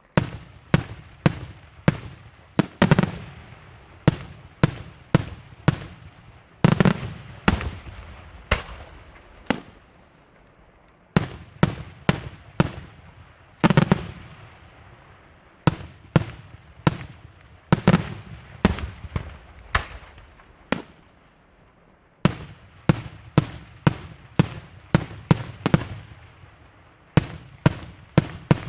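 Daytime fireworks display: a rapid run of sharp, loud bangs, about two to three a second, each trailing a short echo. There are brief lulls about ten seconds in and again past twenty seconds.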